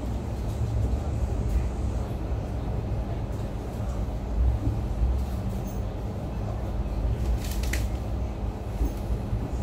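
Train running on the track, heard from inside a moving passenger coach: a steady low rumble of wheels and carriage with a faint steady hum. One brief sharper sound stands out about three-quarters of the way through.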